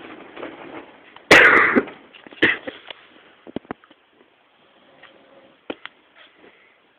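Soft breathy snoring of a sleeping pet, broken about a second in by a loud, short cough-like snort, a shorter one about a second later, then a few faint clicks.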